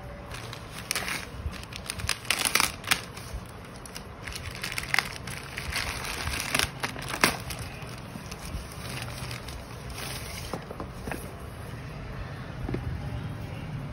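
Plastic courier mailer bag crinkling and tearing as it is ripped open by hand, a dense run of sharp rustles and rips. After about seven and a half seconds it settles into softer, occasional handling sounds.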